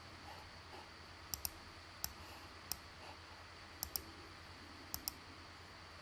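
Computer mouse button clicking: about eight sharp clicks, several coming in quick pairs, over a faint steady room hum.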